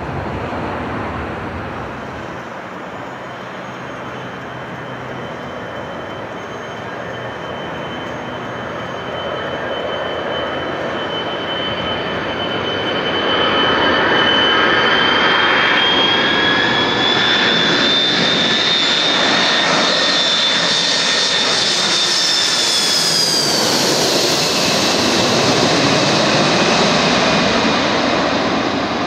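The two General Electric CF6-50 turbofans of an Airbus A300B4 freighter on final approach, growing steadily louder as it comes in low. A high whine rises slightly in pitch, then drops sharply as the jet passes overhead a little over two-thirds of the way through. A broad jet roar follows as it moves away.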